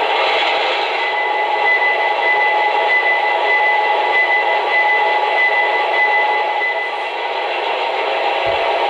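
Steady running noise from O-gauge model trains on a display layout, with a high, thin steady tone from about a second in that fades out near the seventh second.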